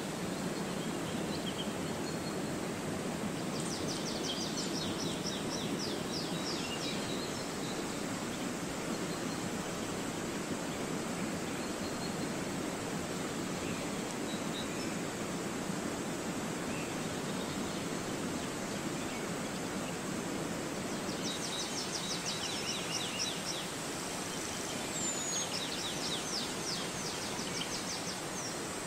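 Steady outdoor rushing noise with birds singing over it in rapid high trills, a few seconds in and again near the end.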